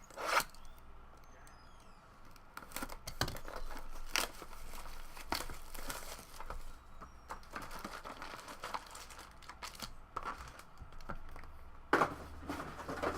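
Plastic and foil packaging of trading-card boxes and packs crinkling and tearing as it is opened by hand, in irregular crackles and short rips.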